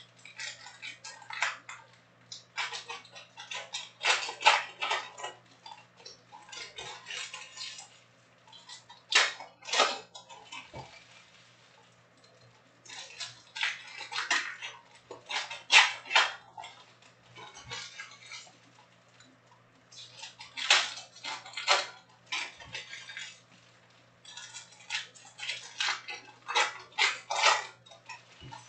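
Trading-card packs being opened and stiff chrome cards handled: clusters of sharp crinkling and clicking that come in quick runs of a second or two with short pauses between.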